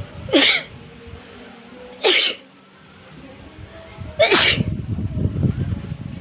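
A woman sneezing three times, each sneeze short and loud, about two seconds apart.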